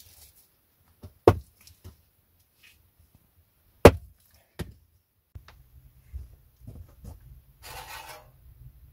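Small hatchet chopping kindling on a wooden chopping block: two sharp whacks a couple of seconds apart, with a few lighter knocks. Later a low background rumble and a brief rustling scrape.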